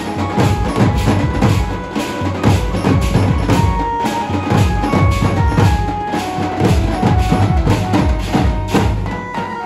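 A street drum band beating large double-headed bass drums with sticks in a fast, dense, continuous rhythm. A melody of short held notes sounds above the drumming.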